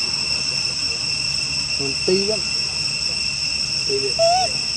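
Steady insect chorus, a constant high whine at several pitches. Two short calls that rise and fall cut in over it, about two and four seconds in.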